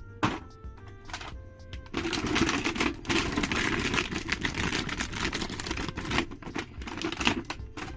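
Background music with steady tones, overlaid from about two seconds in until near the end by a dense run of rapid clicking and rustling.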